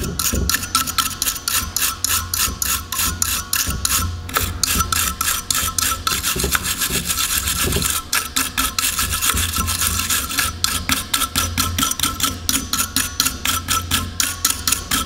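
Soft wire brush scrubbing the dirty electrical contacts on the back of an alternator, where the voltage regulator seats, in quick back-and-forth strokes several times a second, cleaning them so the new regulator makes good contact.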